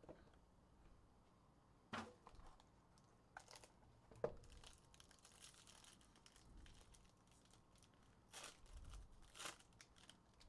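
Faint crinkling and tearing of a trading-card pack's foil wrapper as it is pulled out and ripped open, with a few sharp taps from handling the cardboard box, the loudest a little after four seconds.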